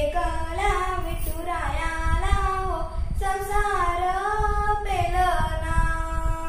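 A young girl singing a Marathi devotional gajar to Vitthal solo, with no accompaniment, holding long notes that glide between pitches, with a short break for breath about three seconds in.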